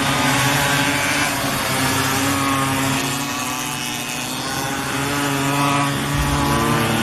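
A vehicle engine running steadily, a constant drone with a hiss over it, cutting off abruptly at the end.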